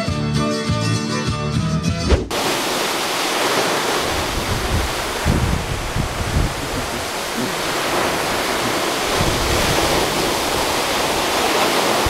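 Folk music with fiddle cuts off about two seconds in. It gives way to the steady rushing of a tall waterfall heard close to its base, with uneven low rumbles underneath.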